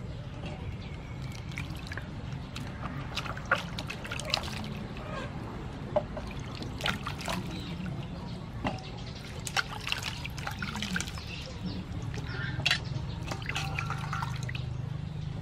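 Water splashing and sloshing as hands wash tomatoes and chilies in a stainless-steel bowl of water, with scattered small splashes over a steady low hum.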